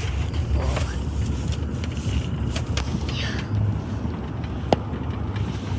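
Car driving: a steady low rumble of engine and road noise, with one sharp click shortly before the end.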